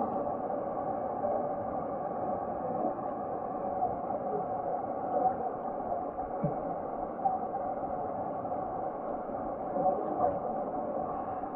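Muffled, steady rush of river water, with no sharp events standing out.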